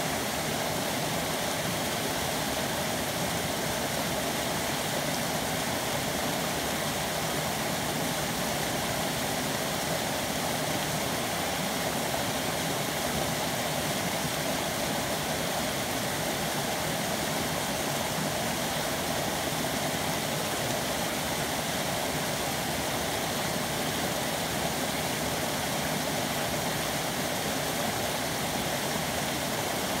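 Small mountain-stream waterfall cascading over rocks into a pool: a steady, unbroken rush of falling water.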